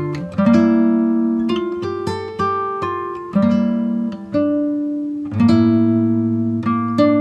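Background music: acoustic guitar playing chords and picked notes, a new one struck about once a second, each ringing and fading.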